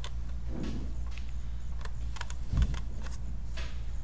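A metal camera lens being fitted by hand onto a film SLR body: a string of small clicks and scrapes, with a low knock about two and a half seconds in.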